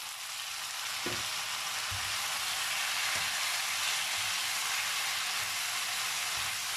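Chopped tomatoes sizzling as they go into hot sunflower oil with fried eggplant in a frying pan, the hiss growing louder about a second in. A spatula stirring them through, with a few soft knocks against the pan.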